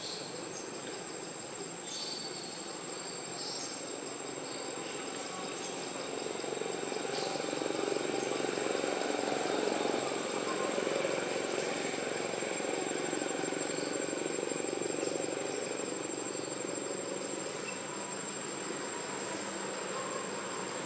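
Steady chirring of insects in the forest, one constant high-pitched note, over a broad rushing background that grows louder for several seconds in the middle.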